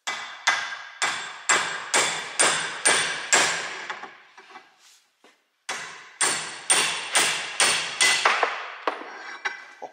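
Hammer blows on a long steel drift against a tractor steering box held in a vice, knocking out its worn, disintegrated bearings. Steady blows about two a second, each ringing like struck metal, stop for about a second and a half, start again, and give way to lighter taps near the end.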